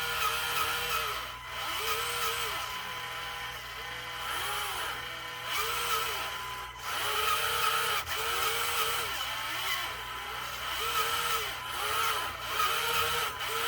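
Two LEGO Control Plus angle motors driving a LEGO Technic mower's rear wheels, whining through their gears. The whine rises and falls in pitch again and again in runs of about a second as the motors speed up and slow down.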